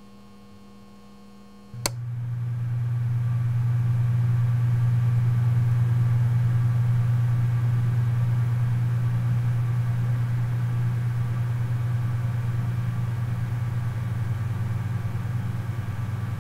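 A faint electrical hum, then a sharp switch-like click about two seconds in. A loud, deep, steady electrical hum follows, swelling and then slowly fading.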